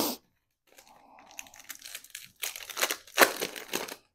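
Foil wrapper of a trading-card pack crinkling as it is handled and torn open. The crackly rustles grow louder over the last couple of seconds and stop sharply near the end.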